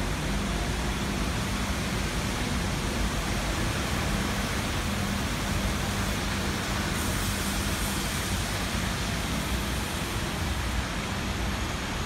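Steady road-traffic noise: a continuous hiss of traffic with a low hum under it. The hiss grows brighter for a few seconds about seven seconds in.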